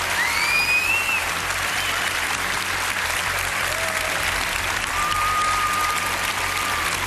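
Large studio audience applauding steadily, with a couple of whistles rising above the clapping: one rising about a second in, one held near the end.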